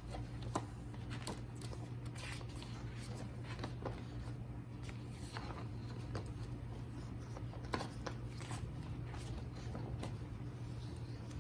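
Light handling sounds of packaging and printed items: scattered soft clicks, taps and rustles over a steady low hum, with a sharper tap near the start and another about three-quarters of the way through.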